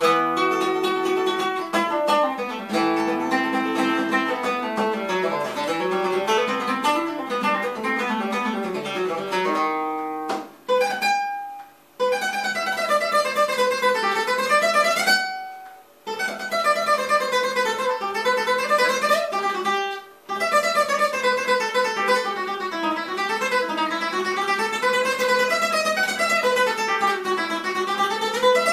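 Solo Spanish acoustic guitar picking out a comparsa pasodoble melody note by note, in quick runs that climb and fall in waves. The playing breaks off briefly a few times, near the middle, before picking up again.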